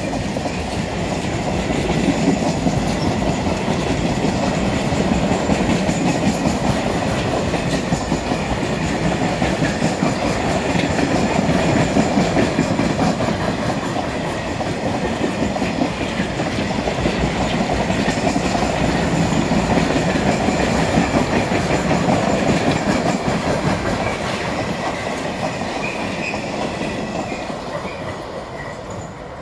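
Freight train wagons rolling past on the track, wheels clicking over the rail joints. The sound fades over the last few seconds as the end of the train goes by.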